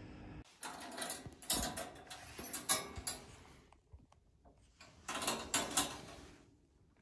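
A cat scratching at the litter in a plastic litter tray: two spells of gritty scratching and rustling, the first lasting about three seconds and the second starting about five seconds in.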